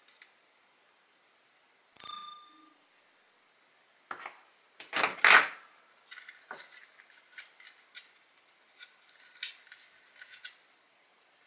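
A ringing metallic clink about two seconds in, then a run of clicks, taps and scraping as small tools and parts are handled on a workbench.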